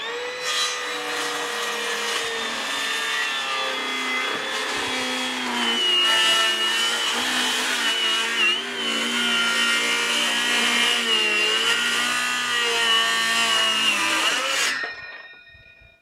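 Hilti Nuron 7 1/4-inch cordless circular saw cutting through 2-inch solid walnut: the motor whines steadily, its pitch dipping and recovering as the blade loads up in the thick hardwood. It spins down near the end as the cut finishes.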